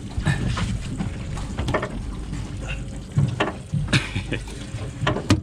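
A string of irregular knocks and splashes at the side of a small boat as a big queenfish is gaffed and brought aboard.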